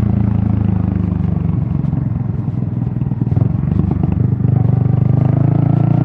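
Yamaha XSR155's single-cylinder engine and exhaust heard from the rider's helmet while riding. The engine note drops and turns uneven for a few seconds, then steadies and rises again about four and a half seconds in.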